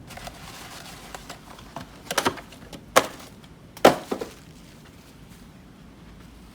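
A handful of sharp knocks and clicks from objects being handled, bunched between about two and four seconds in, the loudest two about a second apart.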